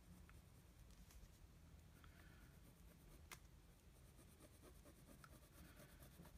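Faint scratching of a BIC Round Stic ballpoint pen drawing on lined notebook paper, with one sharper click about three seconds in.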